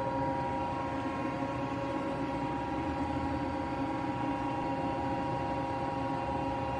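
Miyano BNC-34T CNC lathe running with a steady machine hum: several constant tones over a low rumble.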